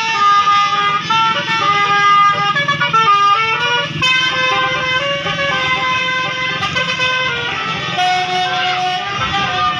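A bus's Basuri telolet horn, a multi-trumpet musical horn, playing a tune of held notes that step up and down in pitch. A low rumble runs underneath.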